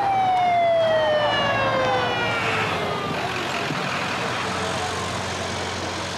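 Ambulance siren winding down in one long, slowly falling tone that fades out about three and a half seconds in, over the steady low hum of the vehicle's engine.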